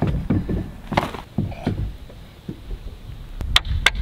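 Wind buffeting the microphone, with rustling and handling of a neoprene wetsuit. Near the end, a quick run of sharp clicks.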